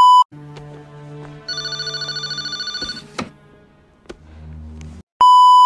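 A loud, steady, high-pitched bleep, then a telephone ringing in a fast warble for about a second and a half over low steady tones. A low hum follows, and the same bleep cuts in again near the end.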